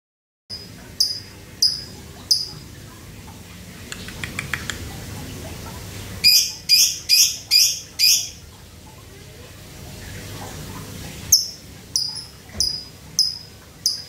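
Male Fischer's lovebird giving its sharp, high 'ngetik' ticking notes, which sound like lato-lato clacker balls: three spaced notes near the start, a quick run of five in the middle and five more near the end. This ticking call is the sign of a male in strong breeding arousal ('over birahi').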